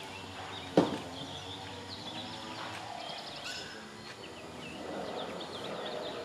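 Birds chirping throughout, with one sharp loud thump about a second in.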